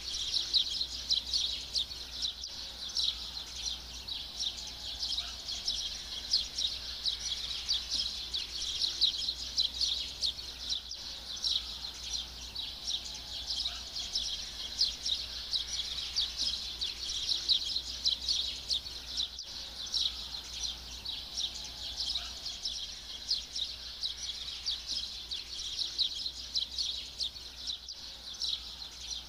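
A dense, continuous chorus of small birds chirping rapidly and high, over a low steady hum.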